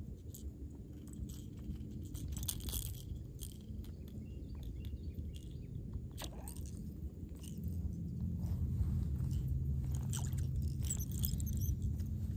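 Scattered light clicks and ticks from rod, spinning reel and topwater lure being handled, over a low steady rumble that grows louder about two thirds of the way through.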